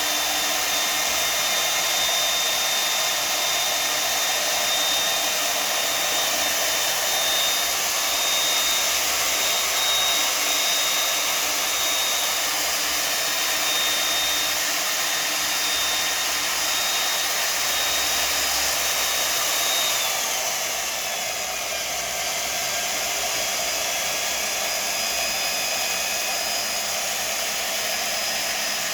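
Handheld power tool spinning a cleaning rod to polish an airsoft inner barrel. Its motor gives a steady high whine that drops in pitch about two-thirds of the way through, then runs on at the lower speed.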